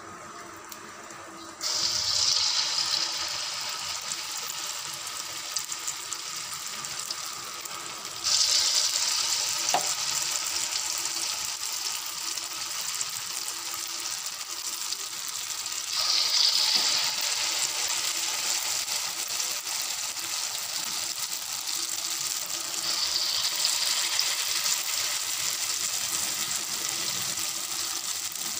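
Batter-coated balls of sweet chana-dal filling (susiyam) deep-frying in hot oil in a steel wok: a steady sizzle that jumps up suddenly about four times as each new ball goes into the oil.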